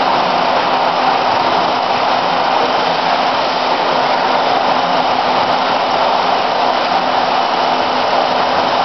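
Trigger-spray bottle production line running: conveyor and machinery make a steady, even din with a low hum under it.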